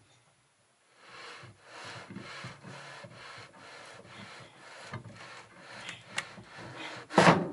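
Stainless propeller shaft being drawn out through the stern tube and rubber Volvo stern gland shaft seal, with a string of irregular rasping, scraping strokes as it slides. A single louder knock comes near the end.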